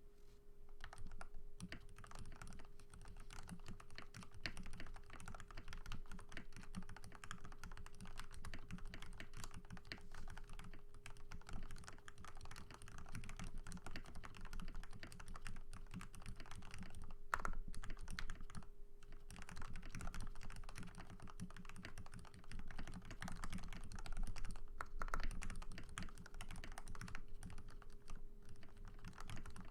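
Continuous typing on a Tada68 mechanical keyboard with lubed Gateron White linear switches, lubed and clipped plate-mount stabilizers and PBT keycaps: a fast run of key clacks with short pauses, and a couple of heavier strokes.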